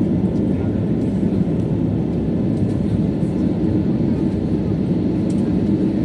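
Steady low roar of an airliner's engines and rushing air, heard from inside the passenger cabin as it climbs after takeoff.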